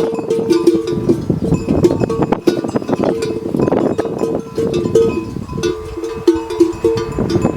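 Bells hung on grazing water buffalo clanking irregularly, two bell tones of different pitch ringing out and overlapping.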